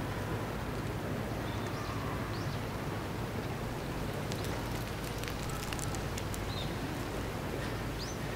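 Steady outdoor background rumble and hiss, with a few faint high chirps and some light clicks around the middle.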